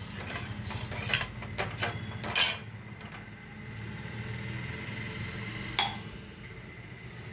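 Steel ladle stirring vegetables in a stainless steel pot, clinking and scraping against the metal several times in the first couple of seconds, while water is poured into the pot. One more sharp clink comes about six seconds in.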